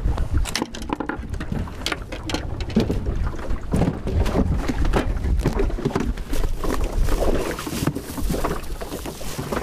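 Wind buffeting the microphone and water lapping against a small wooden boat's hull, with frequent knocks and clicks of gear being handled on board, including rummaging in a plastic cool box near the end.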